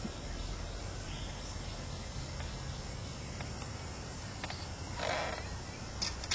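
Quiet background with faint insect chirping, then a short rustle about five seconds in and a few light clicks near the end, from handling the new fuel filter and cap.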